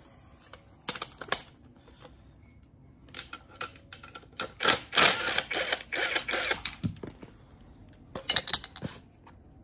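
Red cordless power tool undoing a bolt on the engine, rattling in bursts: a couple of metal clinks about a second in, a long run of rapid rattling strokes in the middle, and a shorter burst near the end.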